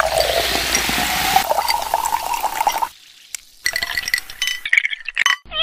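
Sprite poured from a plastic bottle into a tall glass of ice cubes, fizzing, with a tone that rises in pitch as the glass fills. After a short pause, ice cubes clink against the glass as the drink is stirred.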